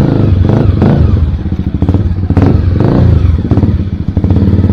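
Motorcycle engine and exhaust running as the bike rolls at low speed, rising and falling with the throttle a few times.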